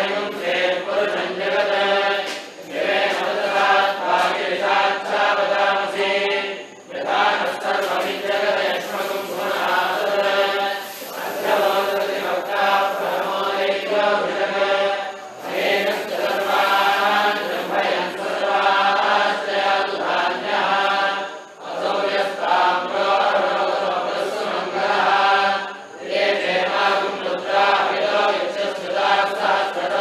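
Devotional chant sung in long, steady phrases, with brief breaks for breath every few seconds.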